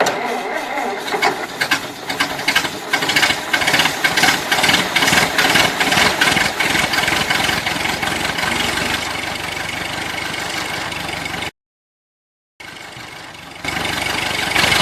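An engine running with a rattling, knocking clatter. It cuts off abruptly about 11 seconds in, then comes back quieter a second later and grows louder near the end.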